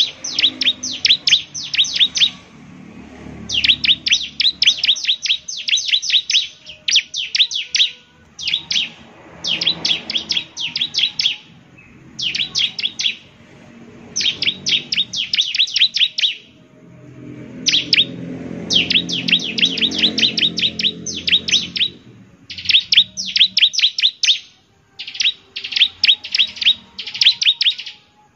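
Bar-winged prinia (ciblek) singing energetically: rapid trains of quick, sharp descending notes in bursts of one to two seconds, repeated over and over with short pauses between.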